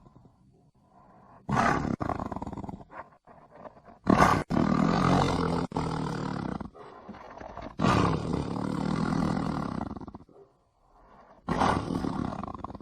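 Tiger roaring: about four loud roars a few seconds apart, each starting suddenly and tailing off.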